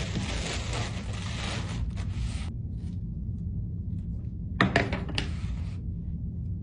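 Plastic bag rustling and crinkling as it is pulled off a block of pottery clay, stopping after about two and a half seconds. A couple of seconds later come a few sharp clicks and a short scrape as a wire clay cutter is drawn through the block. A steady low hum runs underneath.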